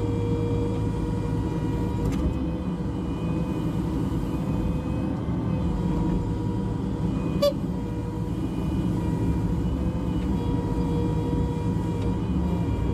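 Diesel engine of a Cat 305.5E2 mini excavator running steadily under a constant whine, with one sharp click about seven and a half seconds in.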